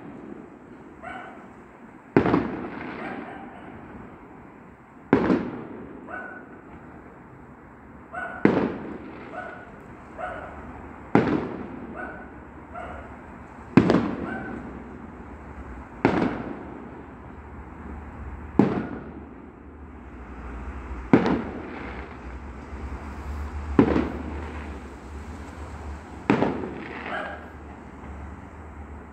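Aerial firework shells bursting: about ten sharp bangs roughly two and a half seconds apart, each trailing off into an echo.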